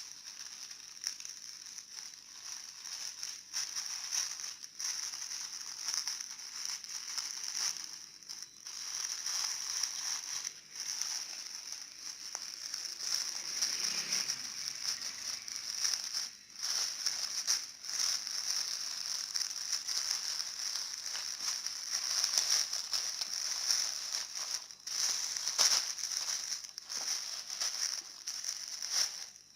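Parcel packaging crinkling and rustling irregularly as it is handled and opened, over a steady high hiss.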